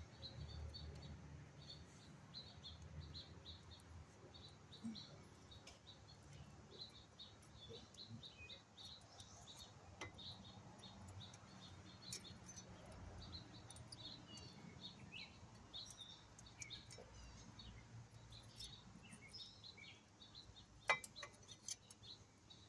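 Faint bird chirping: short high chirps repeated in quick runs, with a few scattered light clicks and one sharper click near the end.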